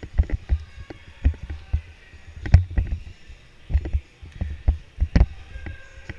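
Irregular knocks and low thuds of movement and gear, broken by two louder sharp cracks about two and a half seconds apart.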